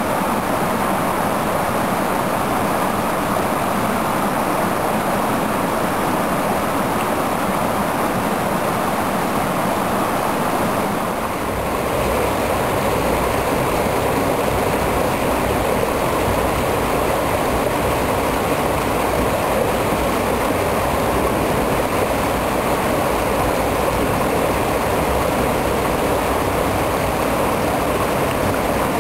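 Stream water rushing steadily. About eleven seconds in, the sound briefly dips and then turns fuller and deeper.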